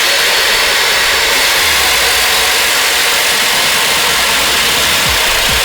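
Keyang electric chainsaw running at full speed with a steady high whine, with low knocks starting about five seconds in.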